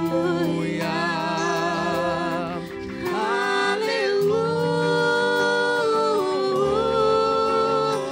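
A woman and a man singing a gospel song in duet through microphones and the church's loudspeakers. There is a brief drop about three seconds in, then long held notes through the second half.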